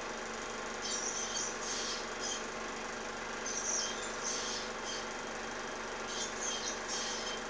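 Osprey nestlings calling, high thin chirps in short runs every second or two, over the steady hum and hiss of an old film soundtrack.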